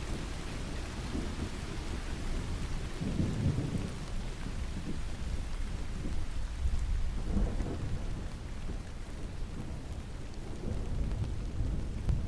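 Steady rain falling, with low rolls of distant thunder that swell about three seconds in and again about seven seconds in.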